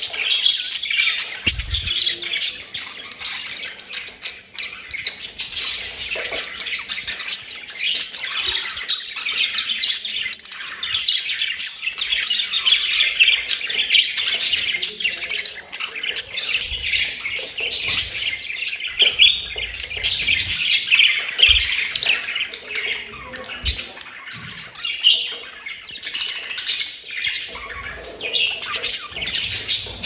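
Budgerigars chattering and warbling: a dense, unbroken stream of quick chirps and squawks, the chatter of a breeding pair.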